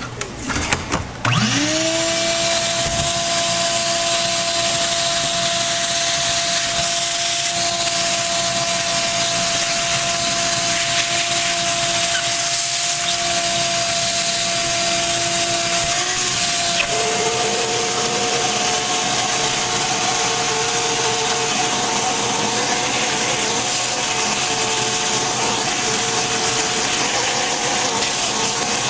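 Shop vacuum switched on and spinning up about a second in, then running with a steady motor whine and rushing air as it sucks out mouse nest material. About halfway through, the whine steps slightly higher as the airflow changes.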